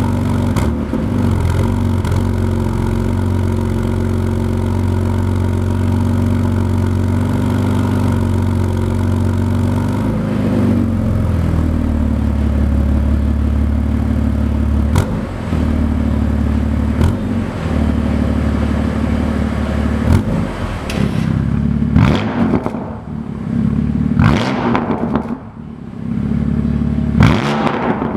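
BMW S55 twin-turbo straight-six with an aftermarket exhaust idling, then revved in several short throttle blips, each rising and falling in pitch, in the last third. A few sharp cracks come from the exhaust in between.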